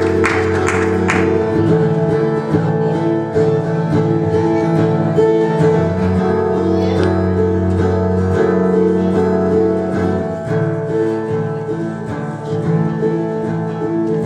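Instrumental introduction of a song played on guitar, with no singing yet.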